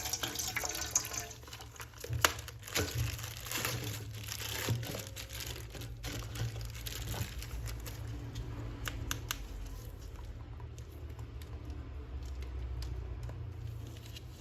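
A running tap's hiss fades in the first second or so, then soft crinkling and scattered light clicks and crackles follow, as of hands handling a small plastic item.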